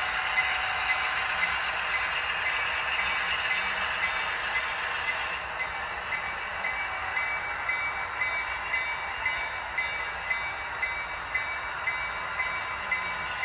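HO scale model train running on the layout track: a steady whir with a regular click about twice a second.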